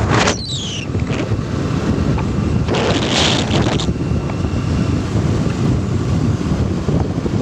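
Wind buffeting the microphone over a steady low rumble, with a short rush of higher noise about three seconds in.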